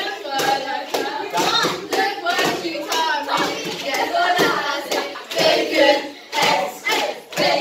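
Group of girls singing together, with steady rhythmic hand clapping keeping the beat.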